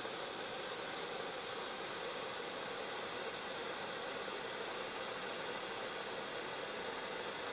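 PG-550 powder flame spray gun running, its flame jet making a steady, even noise as it sprays thermoplastic powder onto the part.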